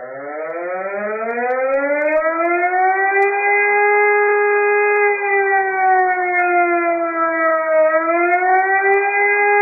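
Fire siren winding up over about three seconds to a steady wail. Its pitch sags briefly about eight seconds in, then climbs back.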